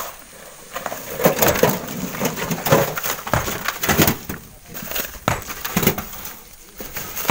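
Stones clattering and scraping in a steel wheelbarrow as it is handled and tipped on a wooden truck bed: a run of irregular knocks and scrapes, strongest in the middle and easing off near the end.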